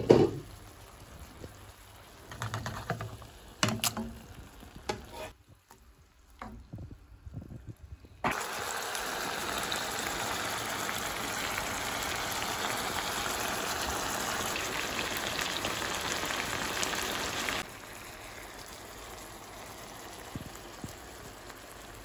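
Haddock fillets frying in a pan of bubbling garlic and herb sauce, a steady sizzle. A knock and a few clicks come first, then a short near-quiet gap; about eight seconds in a loud steady sizzle starts abruptly, then drops sharply to a quieter sizzle a little past halfway.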